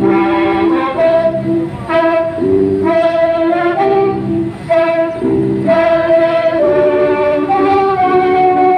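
Music: a melody of long held notes over sustained chords, changing every second or so.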